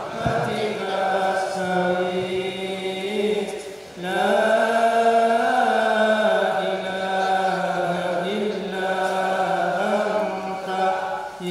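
Male voices chanting Sufi dhikr in long, held, melodic phrases, with a brief break about four seconds in.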